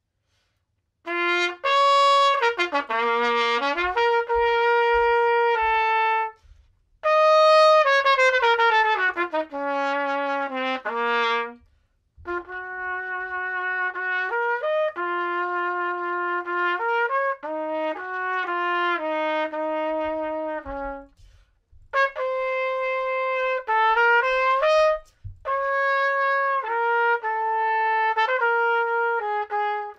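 Solo trumpet playing an unaccompanied melody, starting about a second in, in several phrases separated by short pauses.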